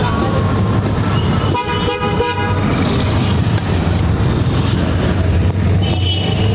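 Busy road traffic with a steady engine hum and vehicle horns honking, the longest horn blast about two seconds in.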